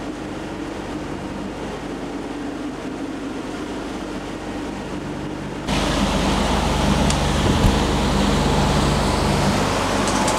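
Catamaran motoring on a calm sea: a steady low engine hum under the rush of water along the hull. About halfway through the sound jumps suddenly louder and closer.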